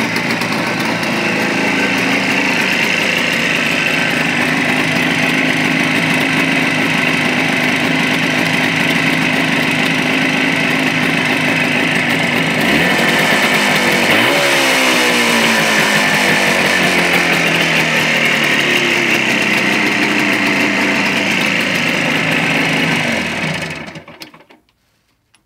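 Jawa 350 type 638 two-stroke twin motorcycle engine idling steadily. About halfway it is revved once, and the revs sink slowly back to idle. Near the end it is switched off and runs down to silence.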